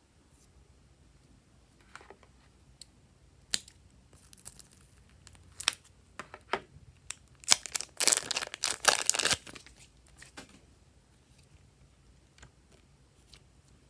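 Slime being squeezed and pulled by hand, giving off sticky pops and clicks that thicken into a dense crackling about eight seconds in, then die away.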